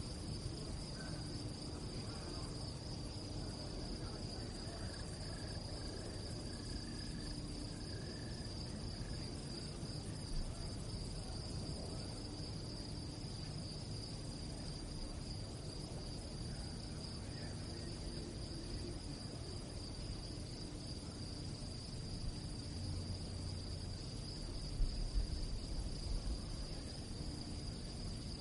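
Crickets chirping at night in an unbroken chorus: a steady, high trill that pulses without a break over a low background rumble. A brief low bump is heard near the end.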